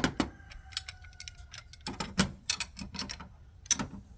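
Metal parts clinking and rattling in a quick, irregular series of sharp clicks, with a brief ringing tone after one strike near the start.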